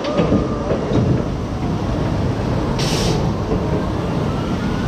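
Gerstlauer family roller coaster train running past on its steel track: a steady rumble of wheels on rail, with a short burst of hiss about three seconds in.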